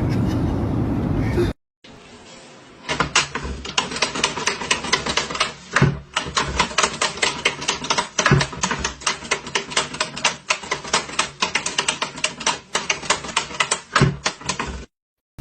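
A brief stretch of steady low rumbling noise cuts off, and then comes a long, fast run of sharp clicks, several a second, like rapid typing, with three heavier thuds among them.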